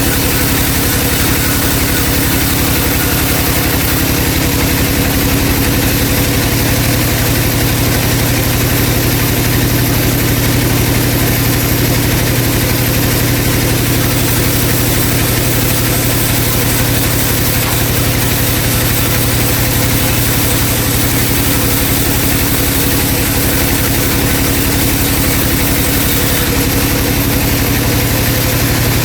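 Vertical band saw running steadily, a constant machine drone with no change in pitch or level.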